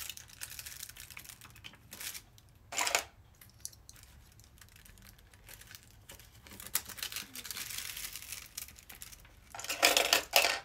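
Diamond painting canvas and its plastic cover film crinkling and rustling as it is handled, with small clicks as binder clips are fastened along its top edge. It comes in several bursts, and the loudest is near the end.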